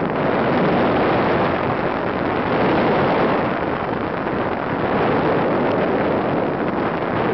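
Wind rushing over the microphone in paraglider flight: a loud, even rush with gentle swells and no engine note.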